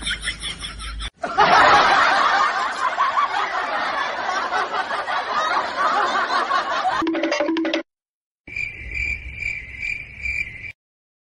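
Comedy sound effects: a short laugh ends about a second in, then a long loud stretch of dense noise, and near the end a high cricket-chirp effect pulsing about two to three times a second.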